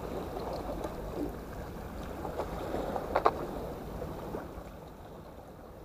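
Steady low rumble of sea and wind along a rocky seawall, with a few small clicks from fishing terminal tackle being handled while a rig is tied; the sharpest click comes about three seconds in.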